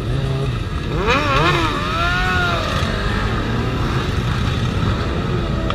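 Several sport motorcycle engines idling in a low, steady rumble. About a second in, a loud high-pitched shout rises and falls for a second or two over them.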